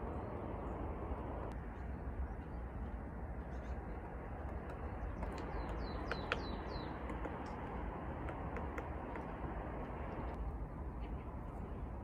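Steady background rushing noise, with a quick run of about five high, falling bird calls midway and scattered faint light taps, from a woodpecker foraging on a tree.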